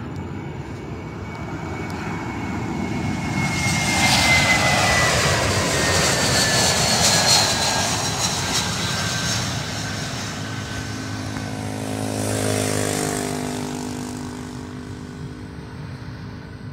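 Twin-engine jet airliner passing low on final approach to land: engine noise swells, peaks and fades, with a whine that falls slowly in pitch as it goes by. A second, lower swell of engine noise comes near the end.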